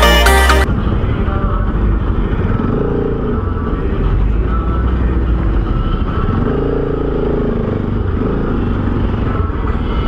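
Electronic background music cuts off under a second in, giving way to a motorcycle engine running at low speed with wind and road noise on the microphone. The engine note rises and falls a couple of times as it moves through slow traffic.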